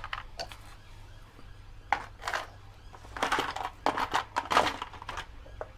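Small metal brake parts clinking and rustling as a box of drum-brake parts is rummaged through. There are a few clicks at first, then a run of quick clatters in the second half.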